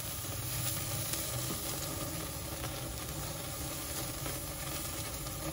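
Ribeye steaks, fresh from the sous vide, sizzling steadily as they are seared over open flames on a very hot grill.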